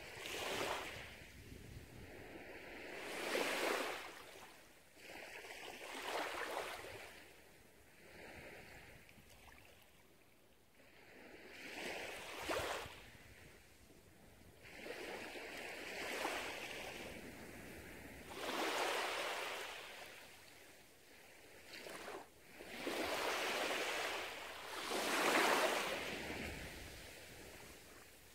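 Small, gentle waves lapping and washing up onto a sandy beach, the hiss of each wash swelling and fading every two to three seconds.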